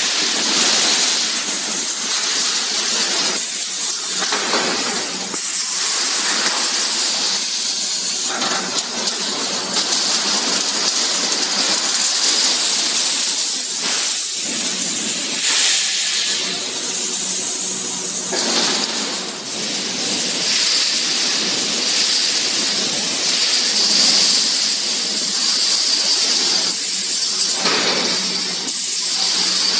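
Automatic pneumatic wire mesh welding machine running: a steady hiss with shifting mechanical noise that swells and dips irregularly.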